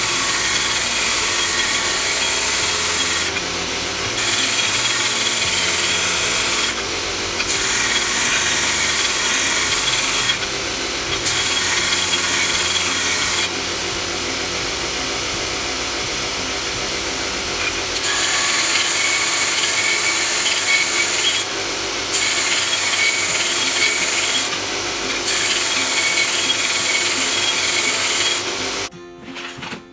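A power tool working against a knife-making workpiece, a loud steady grinding noise that changes abruptly every few seconds across a series of short cut-together stretches.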